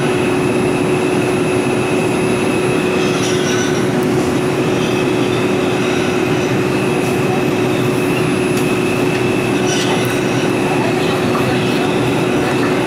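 Inside a Bombardier R142 subway car running at speed through a tunnel: a steady, loud rush of wheels on rail, with a constant low hum and a thin high whine from the running gear. A couple of brief clacks come about three and ten seconds in.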